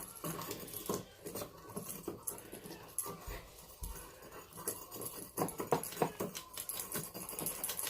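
A small metal chain hanging from a nightstand being rattled, giving irregular light clinks.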